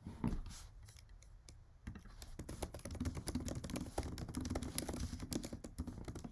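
A soft knock, then from about two seconds in a rapid, uneven run of computer-keyboard keystrokes: someone typing a search to look up a word.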